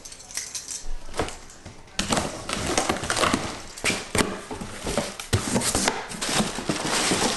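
A laptop's cardboard box and packaging being handled: a few knocks at first, then steady rustling and crinkling with many clicks from about two seconds in.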